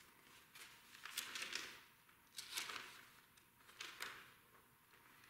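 A quiet room with a handful of faint, short rustles and clicks spread through it, small handling noises between spoken prayers.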